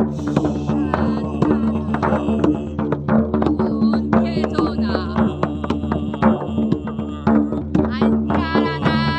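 Live music: a steady low drone, frequent hand-drum strikes, and high wavering pitched tones that come and go, louder toward the end.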